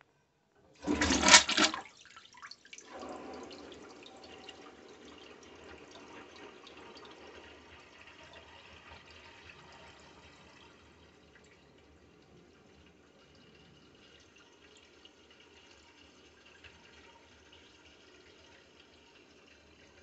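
2018 Gerber toilet flushing with its siphon jet plugged: a loud rush of water about a second in, then water swirling in the bowl that fades over several seconds to a faint trickle. The plugged siphon jet makes the flush fail.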